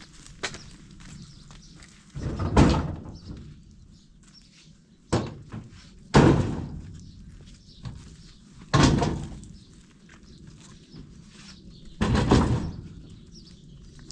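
About five heavy thuds, a few seconds apart, each sudden and dying away over about half a second.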